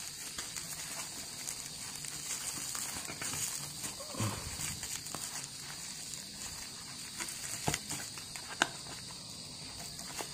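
Bubble wrap and plastic packaging rustling and crinkling as a small cardboard box is unwrapped by hand, with a few sharp crackles near the end.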